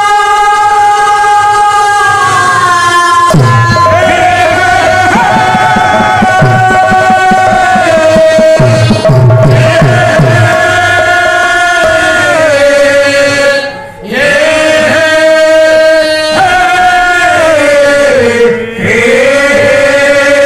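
Pala singers chanting long, drawn-out devotional notes that glide slowly between pitches. Strokes of a khol drum join in between about three and eleven seconds, and the voices break off briefly just before the middle.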